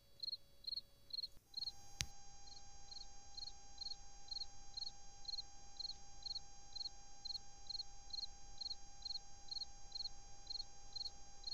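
A cricket chirping at night in short, evenly spaced chirps, about two a second, over a faint steady hum, with a single sharp click about two seconds in.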